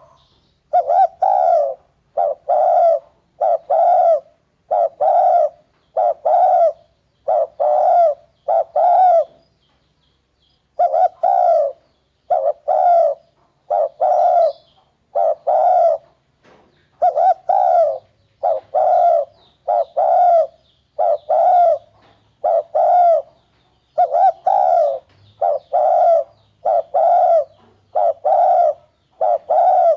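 Spotted dove cooing, its short low phrase repeated about once a second with a few brief pauses.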